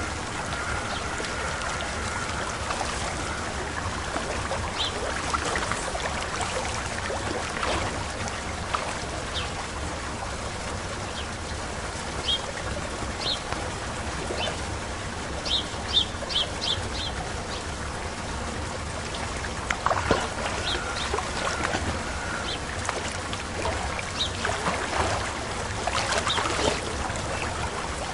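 Penguins giving short high chirps, scattered and with a quick run of about five around the middle, over a steady rush of water and wind.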